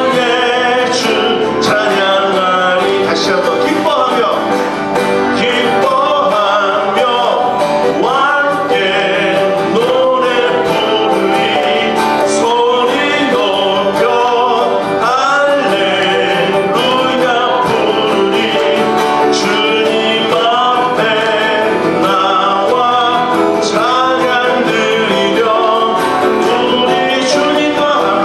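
A man singing a Korean praise song, accompanying himself by strumming a steel-string acoustic guitar.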